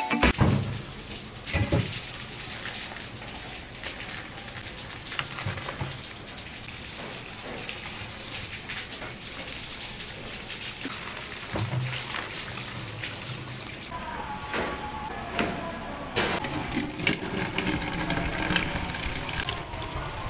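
Tap water running into a stainless steel bowl in a sink as food is washed, with occasional knocks from handling.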